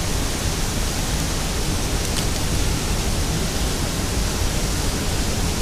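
Portable gas camp stove burner running under a pot of boiling crab legs, an even, steady rushing hiss with no swells.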